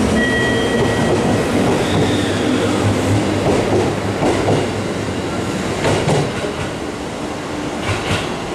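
JR Central 211 series electric multiple unit running past along the platform, its wheels clacking over rail joints with a thin squeal early on. The sound slowly fades as the last car goes by.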